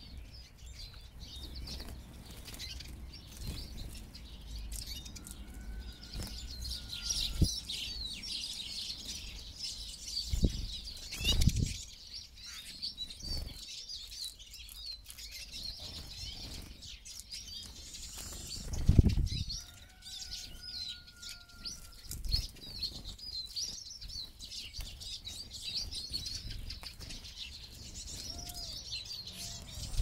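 A flock of Eurasian siskins twittering continuously at a seed feeder, with wings fluttering as birds fly in and out. Now and then a longer, clearer whistled note stands out, and a few loud low thumps of wings close by come about a third of the way in and again a little past the middle.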